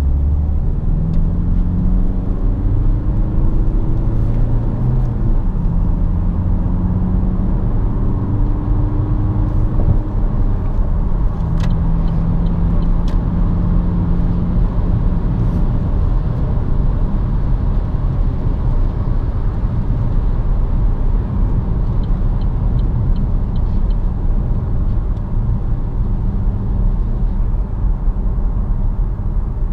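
In-cabin sound of an Opel Insignia's 2.0 CDTI four-cylinder diesel at motorway speed. The engine note rises in pitch over the first few seconds under acceleration, then settles into steady tyre and road rumble.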